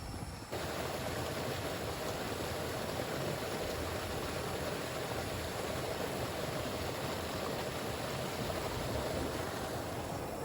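Steady rush of flowing water from a river running high after heavy rain, an even hiss that comes in suddenly about half a second in and holds unchanged.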